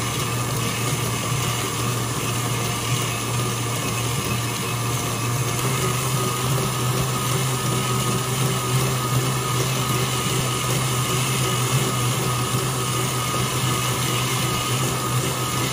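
Electric stand mixer running steadily, its wire whisk beating egg whites and hot sugar syrup into boiled icing in a metal bowl: an even motor hum with the whisk's swishing.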